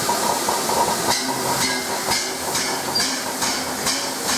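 Streamlined LNER A4-class steam locomotive moving off slowly, hissing steam. About a second in, rhythmic exhaust beats start at roughly two a second.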